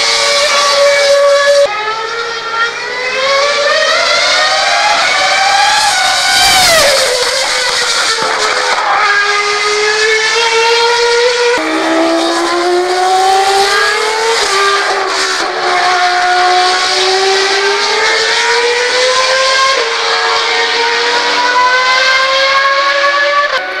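Formula 1 car engine at high revs on track: its high-pitched note climbs and drops suddenly at each upshift, several times. About six and a half seconds in, the note sweeps sharply down as the car passes close.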